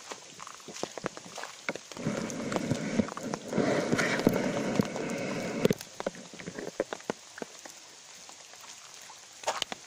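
Light rain falling, with scattered drops tapping on wet ground. A louder rustling noise runs for about three and a half seconds from about two seconds in.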